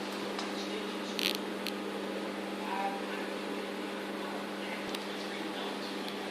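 Microwave oven running with a steady hum, with a few light clicks about a second in.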